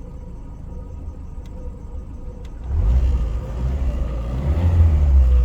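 Lada Priora engine running low and steady, then revved up about three seconds in and held at a louder, rumbling speed. It is an engine with dual-fuel LPG that won't hold its idle speed.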